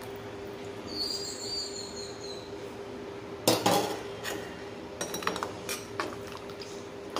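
Steel ladle stirring tamarind gravy in a clay pot, knocking against the pot a handful of times, loudest about three and a half seconds in, over a steady low hum.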